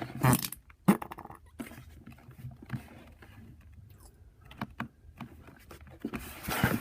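A person farting: a short fart just after the start and a longer one near the end, with small clicks and rustles between.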